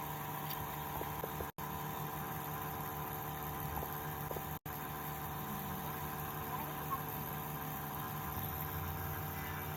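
Steady machine hum holding several constant tones, dropping out to silence for an instant twice.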